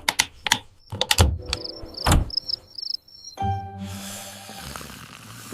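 Cartoon night-time sound effects: a few sharp knocks and clicks, then a cricket chirping in short repeated pulses, followed by soft held music notes under a high shimmering hiss.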